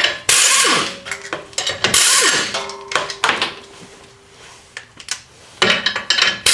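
Impact wrench with a 21 mm socket run in about four short bursts on the lug nuts of a car's rear wheel hub, with a falling whine as it spins down after some bursts and metal clinks in between.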